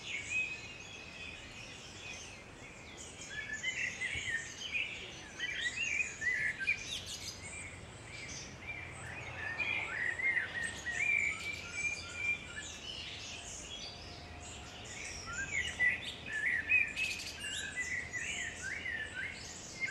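Songbirds singing: short, warbling, up-and-down chirping phrases that come in clusters, with quieter spells about two seconds in and again past the middle, over a steady faint hiss.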